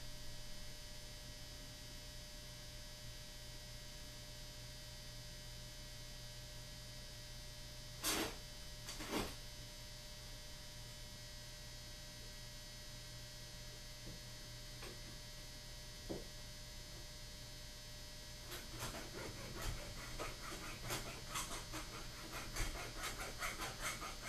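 Steady electrical hum with two sharp knocks about a third of the way in. From about three-quarters in comes quick, repeated rasping of a hand file on the soldered brass trigger plate, dressing off the excess solder.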